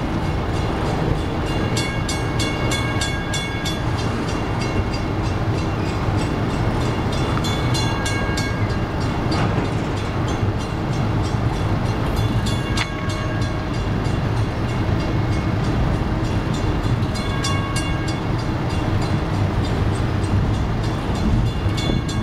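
Double-stack intermodal train cars rolling past close by: a steady rumble of wheels on rail, with high squealing tones that come and go every few seconds.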